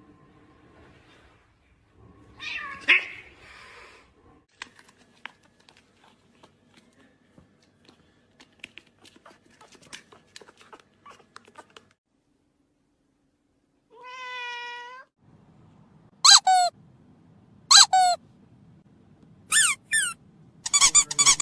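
Cats meowing: a rough call a few seconds in, a longer held meow about two-thirds of the way through, then a run of short, high mews falling in pitch near the end. Scattered light clicks and taps fill the quiet stretch between.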